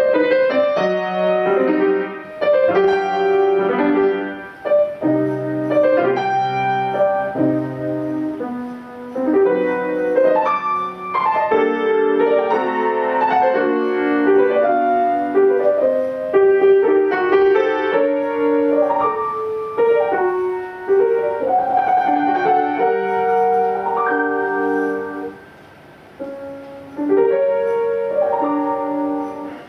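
Piano music: a melody played over chords, with a short break in the playing about 25 seconds in.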